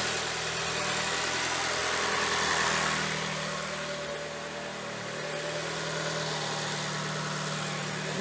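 2023 Toyota Camry's four-cylinder engine idling steadily just after being started, swelling slightly about two and a half seconds in and then settling.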